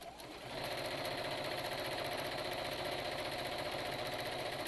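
Sewing machine running at a steady speed, stitching a 1 cm seam along the edge of two layers of double-gauze fabric. The machine starts about half a second in.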